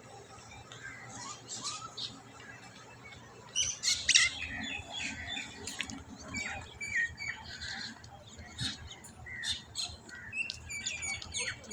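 Several birds calling together in the early morning: many short chirps and squawks overlapping, with a loud cluster about four seconds in.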